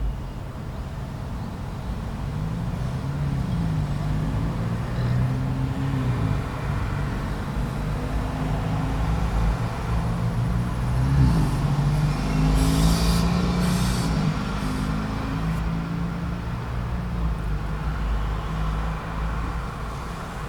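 Intersection traffic: car and heavy truck or bus engines running and pulling away, their pitch rising and shifting. A few short, sharp hisses come a little past the middle.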